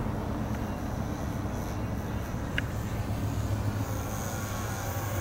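Electric RC trainer plane's motor and propeller droning steadily in flight, under a steady low rumble.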